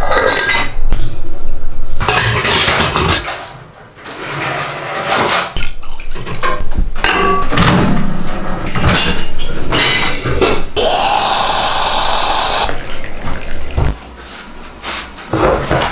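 Close-up kitchen sounds in quick succession: stainless-steel parts of a stovetop moka pot clinking and scraping as it is put together, and microwave control-panel presses with short beeps. A little past the middle comes a steady hiss lasting about two seconds.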